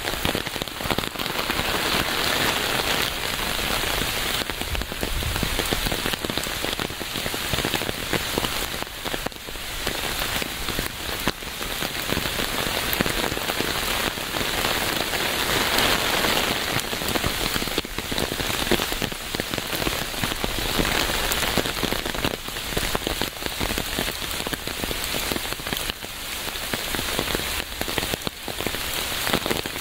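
Steady rain falling on a hard surface, a dense patter of many fine drops with no break.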